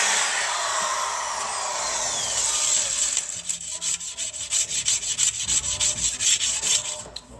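Wire brush on a power drill scrubbing a dirty baking pan: a continuous scraping whose pitch slides downward over the first few seconds as the drill slows, then quick rhythmic scrapes of the bristles on the metal, about five a second, fading near the end.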